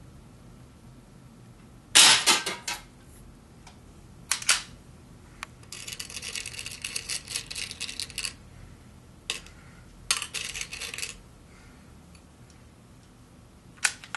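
A single sharp shot from a QB78 .22 CO2 air rifle about two seconds in, the loudest sound, with a brief rattle after it. Then come a few separate clicks and two spells of rattling clatter.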